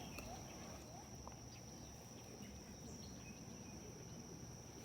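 Insects trilling, a faint, steady, high-pitched note that does not let up, over a low outdoor rumble.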